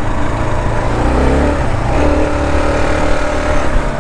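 Kawasaki KLR650's single-cylinder four-stroke engine under way, revving up about a second in and holding a higher steady pitch, easing off slightly near the end.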